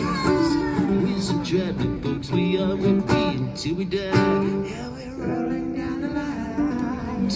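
Live acoustic guitar strummed with a singing voice, a small duo performing a song.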